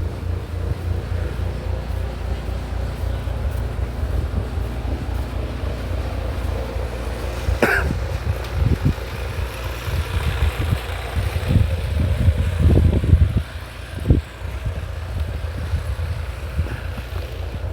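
Wind buffeting the microphone in a blizzard, a steady low rumble with gusts, and one short sharp sound a little under halfway through.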